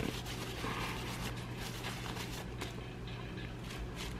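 Paper towel rustling and rubbing as it wipes a black POM pump top plate dry after an isopropyl alcohol clean, with a low steady hum underneath.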